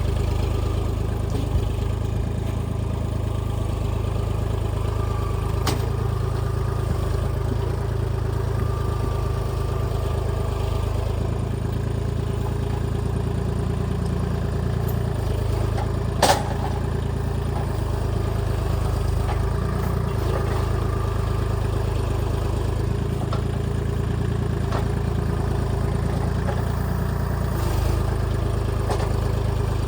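Kubota L2501 compact tractor's three-cylinder diesel engine running steadily while working pallet forks. There is one sharp knock a little past halfway through.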